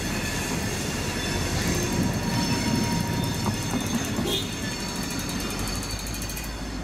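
EMD GP38 diesel-electric locomotive, a two-stroke V16, rumbling at low speed as it pulls a single tank car, with steady high-pitched wheel squeal from the rails.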